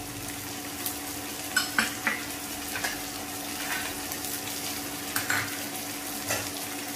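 Chopped onion with ginger-garlic paste frying in hot oil in a kadai, sizzling steadily. A spatula stirs through it, scraping and knocking against the pan several times at uneven intervals.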